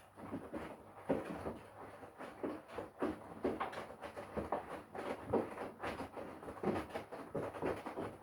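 Front-loading washing machine drum turning, with wet laundry and sudsy water sloshing and flopping inside it in an irregular run of swishes and soft knocks.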